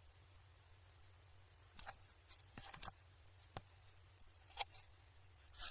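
A few scattered light clicks and taps of a small ratchet and socket being handled, over a faint low hum.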